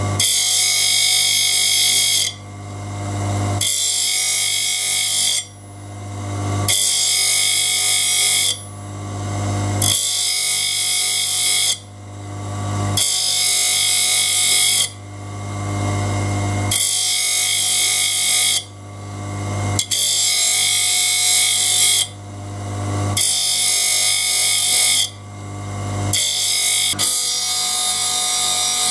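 Electric saw-blade sharpening machine grinding a large circular saw blade's teeth one by one, with a steady motor hum throughout. A hissing grind of the wheel on each tooth lasts a second or two. Short lulls come about every two seconds as the blade is indexed to the next tooth.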